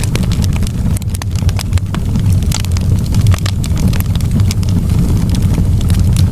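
Fire burning in a fireplace, crackling: many quick sharp pops over a steady low rumble of the flames.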